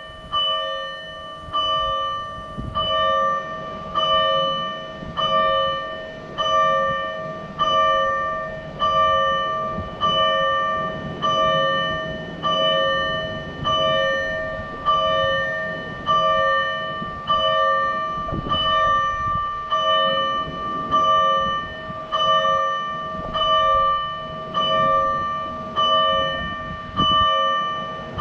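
Electronic fire-engine warning bell from a siren amplifier, in the Tokyo Fire Department pattern. It rings single metallic strikes in a slow, steady rhythm, about one every 1.2 seconds, and each strike dies away before the next.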